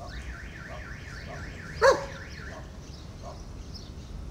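An electronic alarm siren, like a car alarm, warbling up and down about three times a second, stopping about two and a half seconds in. About two seconds in, a single short, loud dog bark.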